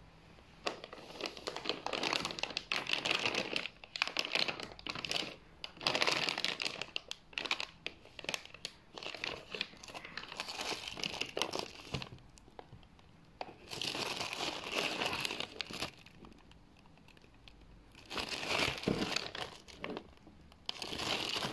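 Thin clear plastic bag crinkling and rustling in irregular bursts as hands pull it open and off a boxed RC car, pausing briefly twice.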